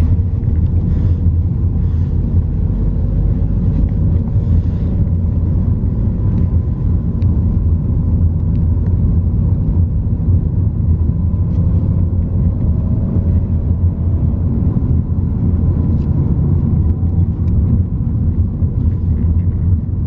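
Steady low rumble of a car driving, heard inside the cabin: engine and road noise.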